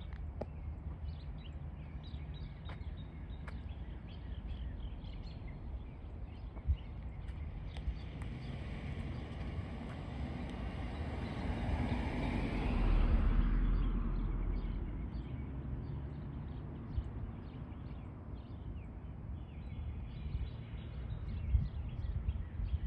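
A vehicle passing by. It builds from about eight seconds in, is loudest around thirteen seconds and fades by fifteen, over a steady low rumble with faint scattered ticks and a few short sharp sounds.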